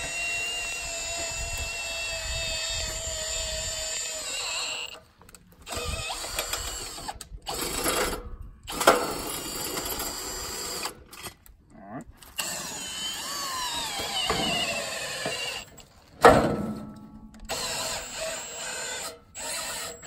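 Cordless drill driving a drill-powered log turner, its motor whining in several spurts with abrupt stops as it rotates a heavy log on a sawmill bed. Two loud knocks, about 9 and 16 seconds in, stand out above the drill.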